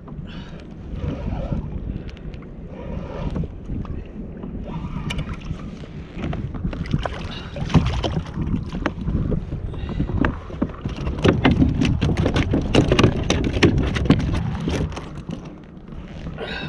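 A hooked snapper splashing at the surface and slapping against a plastic fishing kayak as it is landed: a burst of sharp slaps and knocks from about seven seconds in until near the end, over a low wind rumble on the microphone.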